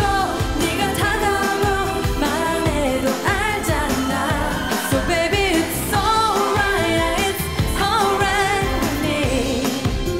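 K-pop song: a singer's voice with wavering held notes over a pop backing track with a steady beat.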